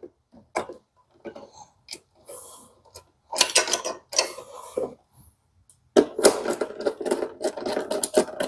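Hands fitting cable ring terminals onto a battery's M8 terminal bolt and tightening it with a screwdriver: scattered small clicks and scrapes, then a dense run of clicking and rubbing for the last two seconds or so.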